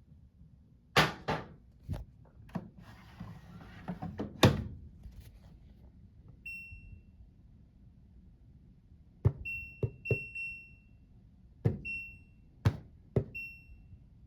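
Washing machine being loaded and set: a few knocks and thuds, the loudest a hard thump about four and a half seconds in, then the control-panel buttons clicked several times, each press answered by a short high electronic beep.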